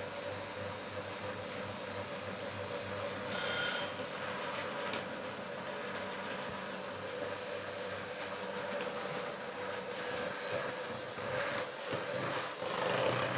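Electric hand mixer running steadily, its beaters whirring through thick pandan cake batter in a stainless steel bowl, with a steady whine. A brief louder burst comes about three seconds in and again near the end.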